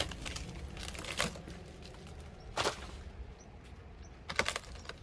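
Rotted wooden wall framing being broken out by hand: a few separate sharp knocks and cracks, about one every second and a half, the last one a quick double.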